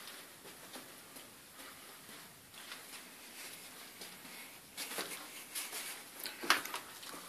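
Scattered small clicks and scuffs of loose rock and gravel underfoot on a mine tunnel floor. They grow busier and louder about five seconds in, with one sharp click near the end.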